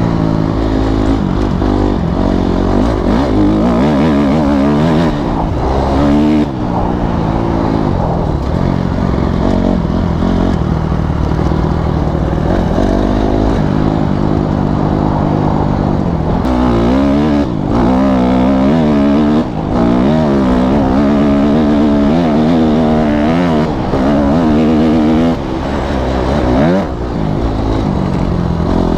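Honda CRF250R four-stroke single-cylinder dirt bike engine under way, revs rising and falling with the throttle, with a few brief drops in power along the way.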